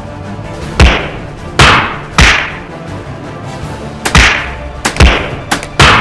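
Gunshot-like sound effects: about six sharp bangs with short fading tails, fired in an uneven burst, over faint background music.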